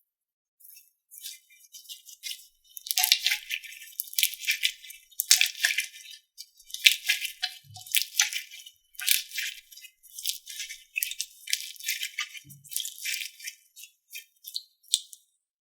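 Slime being squished and pressed, giving irregular bursts of crisp crackling and popping.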